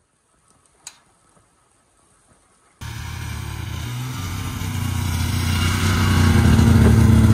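Snowmobile engine running as the machine drives up, starting abruptly about three seconds in and growing steadily louder. Before it, near quiet with a single click about a second in.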